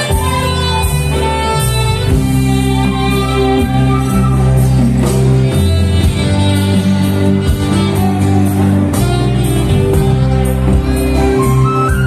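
Live band music with a strong bass line and guitar, with a male vocal quartet singing over it.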